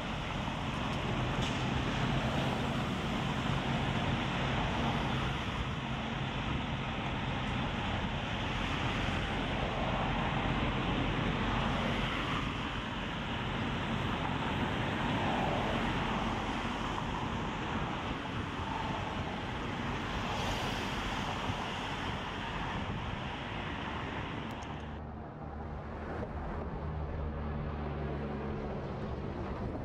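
Diesel semi-truck engine running as the tractor pulls a tanker trailer slowly through a fuel island. About 25 seconds in, the sound cuts abruptly to a steady low drone.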